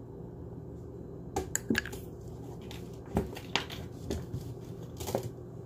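Scattered clicks and knocks of kitchen utensils and containers being handled and set down, over a steady low hum.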